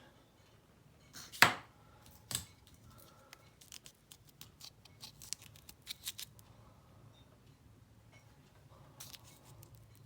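Handling noise from coins in their holders being picked up and moved. A sharp click comes a little over a second in, then another, followed by a run of light clicks and rustles and a brief rustle near the end.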